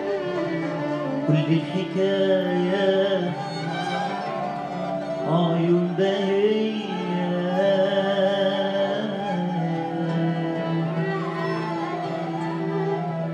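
Classical Arabic tarab song performed live: a male singer holds long, ornamented notes over an Arab orchestra with violins.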